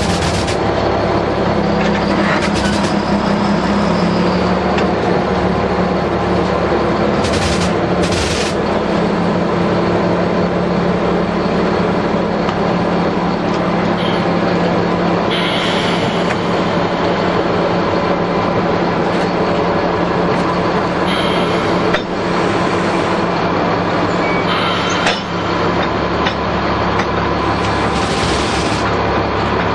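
Diesel switcher locomotive's engine running steadily as it pulls a flatcar slowly along the track, with brief high hisses now and then.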